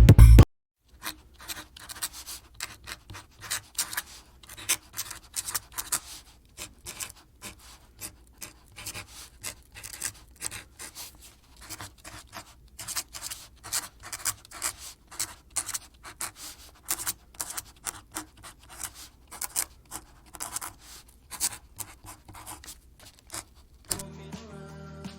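Rapid, irregular scratching and rubbing with many short clicks, uneven in loudness. Loud music cuts off about half a second in, and other music starts near the end.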